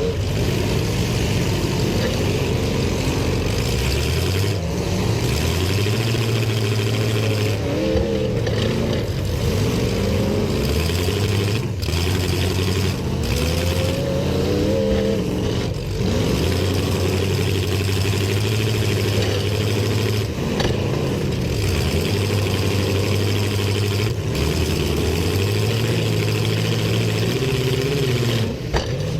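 Demolition derby cars' engines revving hard, the pitch climbing and dropping again and again.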